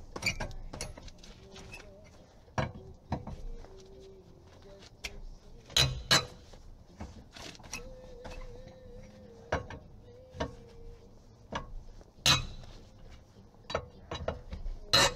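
Irregular metal clinks and knocks of a four-way cross wheel wrench on a car's wheel nut as it is fitted and heaved round to loosen the nut, a few of the knocks much louder than the rest.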